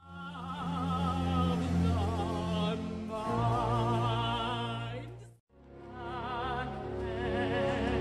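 A woman's operatic voice singing sustained notes with a wide vibrato over low, held orchestral notes. The sound cuts out for a moment about five and a half seconds in, then the singing resumes.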